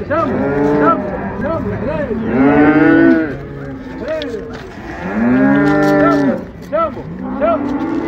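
Calf mooing, several long loud moos with the loudest about two and five seconds in, and shorter, fainter calls between them.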